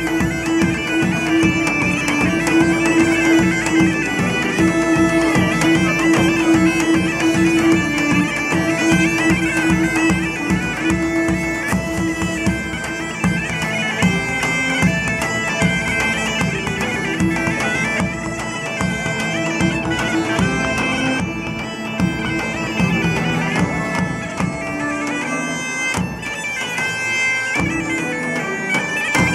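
Live band playing bagpipes, a steady drone under the melody, with a large drum beating a quick, regular rhythm.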